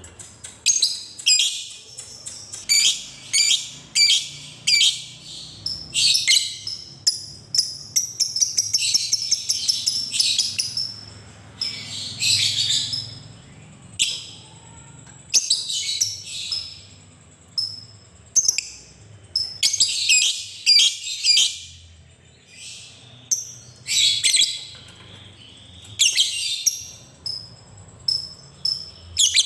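Lovebird chattering in rapid shrill trills (the long 'ngekek' chatter), in bursts of a second or two repeated every couple of seconds, with a longer unbroken run about eight seconds in.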